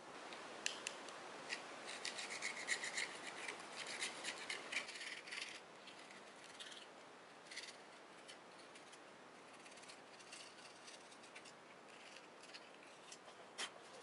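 Faint scraping and quick clicking of metal parts being handled and fitted by hand on a 4.0 straight-six's cylinder head, busy for the first five seconds or so, then a few scattered clicks.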